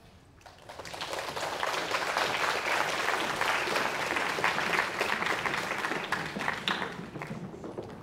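Audience applauding, swelling about half a second in and thinning out near the end.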